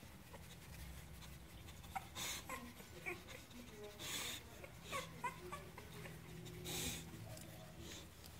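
Two-week-old boxer puppies whimpering in short, high, gliding squeaks scattered throughout, with three louder breathy whooshes in between.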